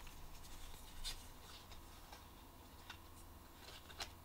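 Faint rustling and a few soft clicks of Pokémon trading cards being handled, taken out of a freshly torn-open booster pack.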